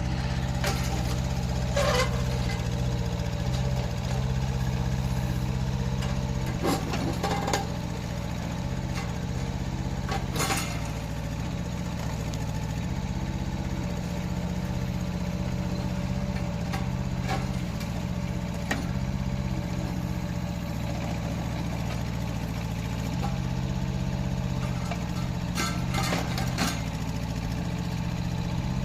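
Rippa R10 mini excavator's engine running steadily, with a few sharp knocks about 2, 7, 10 and 26 seconds in.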